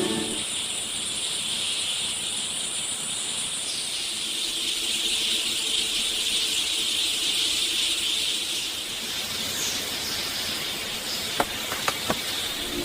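Steady high-pitched hiss, with three or four sharp clicks near the end.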